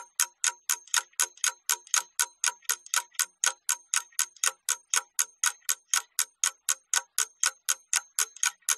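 Clock-ticking sound effect used as a countdown timer while an exercise is worked: sharp, even ticks, about four a second.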